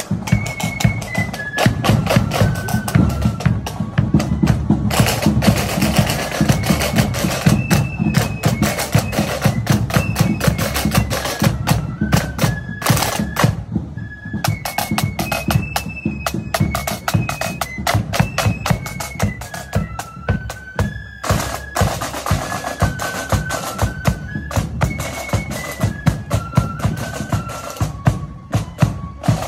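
Marching flute band playing a tune over snare and bass drums beating in march time. The melody steps down from high notes in phrases and starts over about halfway through.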